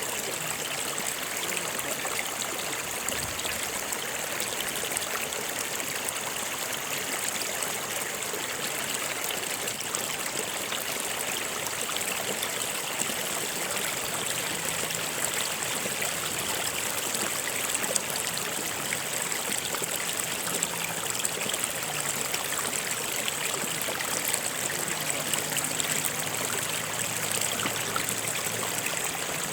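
A stream of running water flowing and trickling steadily, with an even rushing hiss and a steady high band of hiss above it.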